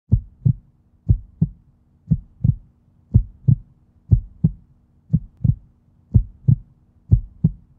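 Heartbeat sound effect: eight double thumps, lub-dub, about one pair a second, over a faint low hum.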